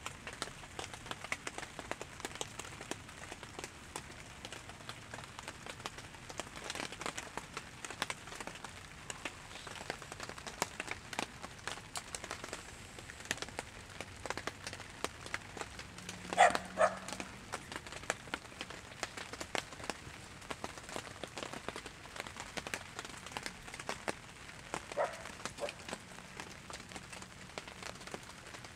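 Rain falling, with many small drops ticking on nearby surfaces. About halfway through comes a brief, louder two-part sound.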